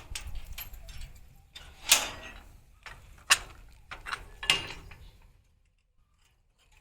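A few sharp mechanical clicks and clanks, spaced a second or so apart, like a latch or fitting being worked by hand. They stop about five seconds in.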